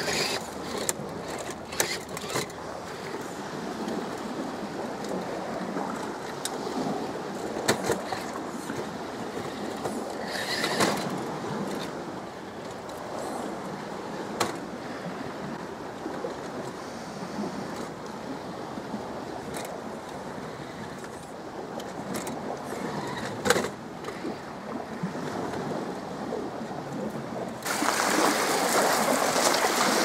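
Traxxas TRX-4 RC rock crawler clambering over concrete slabs, its tyres and chassis knocking sharply against the concrete now and then, over a steady wash of lake waves. Near the end a louder, steady rush takes over.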